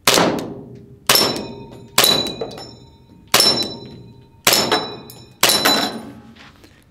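Six shots from an ARMY TTI Combat Master gas blowback airsoft pistol, roughly one a second. Each is a sharp crack followed by a ringing clang as the BBs strike a metal Texas star spinner target.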